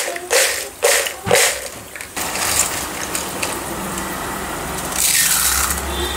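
Crisp fried potato chips tossed in a plastic bowl, rattling and rustling in three quick shakes during the first second and a half. Then a steady crackly rustle as a hand stirs and scoops through the chips, louder about five seconds in.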